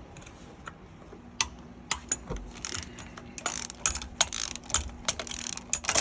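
A 3/8-inch drive ratchet with a 13 mm socket clicking in several short runs as it breaks loose the intake manifold bolts on a Mercruiser 5.0 MPI V8, with a few sharp metal clinks between strokes.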